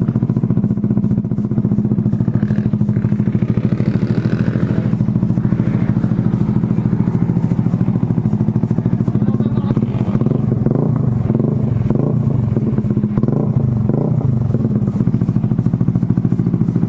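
Motorcycle with an open exhaust pipe idling steadily, a loud, even stream of rapid exhaust pulses.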